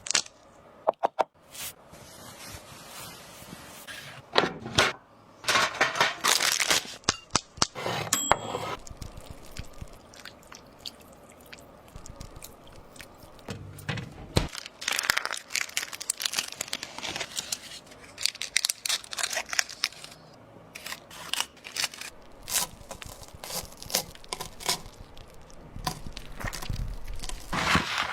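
Irregular crackling and tearing noises in clusters, with many scattered sharp clicks.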